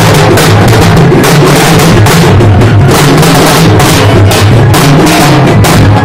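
Several halgi frame drums played together, beaten with thin sticks and bare hands in a fast, dense, loud rhythm.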